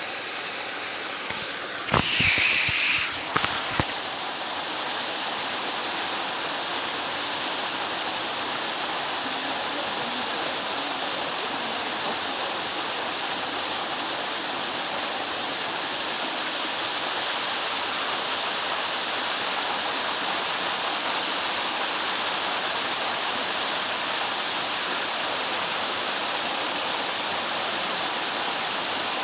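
Waterfall pouring steadily, with a brief, louder burst of noise and a few knocks about two seconds in.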